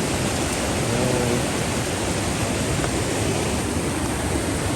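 A fast-flowing river swollen with muddy floodwater: a steady, loud rush of water. A brief faint voice about a second in.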